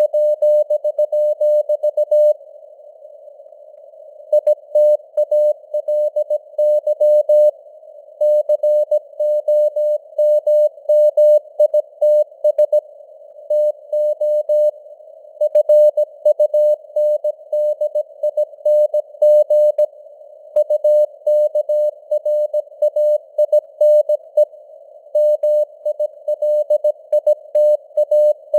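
Morse code (CW) keyed at 17 words per minute as a single steady-pitched tone, inside a narrow band of simulated radio noise, with the signal strength varying (QSB). The keying pauses for about two seconds near the start, with shorter breaks between words later on.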